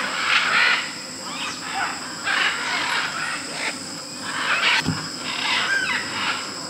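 A flock of scarlet and blue-and-yellow macaws squawking, harsh calls coming about every second and overlapping, over a steady high-pitched hum.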